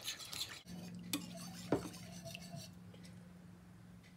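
A spoon stirring and scraping around a white ceramic mixing bowl, with light clinks, as gelatin powder is dissolved in hot water. The stirring is busiest in the first couple of seconds, then grows sparse.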